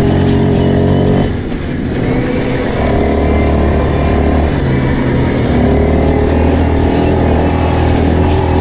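Quad bike engine running as it is ridden, heard close up: the engine note drops away about a second in, picks up again a second or so later, then holds fairly steady with small changes in pitch.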